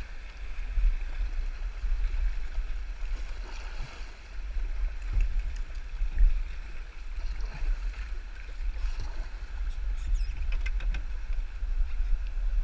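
Shallow river water rushing and lapping against an Old Town Vapor kayak's hull, with wind buffeting the microphone. A few small splashes come near the end.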